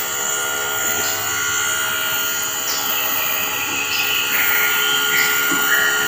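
Nebulizer compressor running, a steady motor hum with a high whine, turning medicine into a mist for a baby's cough and cold.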